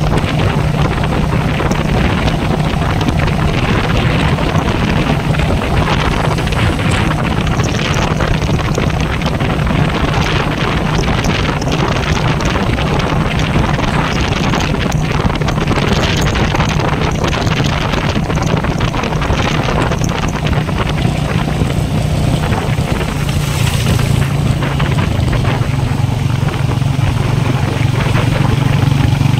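Royal Enfield Meteor 350's single-cylinder engine running steadily at cruising speed, with wind buffeting the microphone. The engine note changes about three-quarters of the way through.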